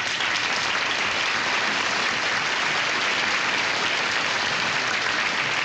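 A large audience applauding, steady and unbroken.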